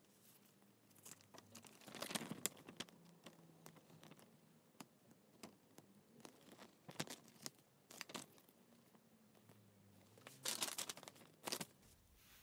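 Faint rustling and crinkling of a paper instruction manual being handled, coming in short spells. The thickest crackling is about two seconds in and again near the end.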